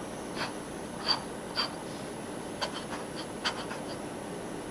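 Medium-nib metal fountain pen writing on notebook paper: short scratchy nib strokes, several in quick succession, with brief pauses between letters.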